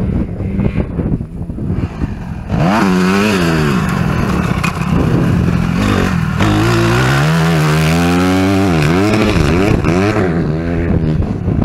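Motocross dirt bike engine revving up and down again and again as it comes past on a dirt track, the pitch rising and falling with each burst of throttle. It is quieter at first, loud from about two and a half seconds in, and eases off a little near the end.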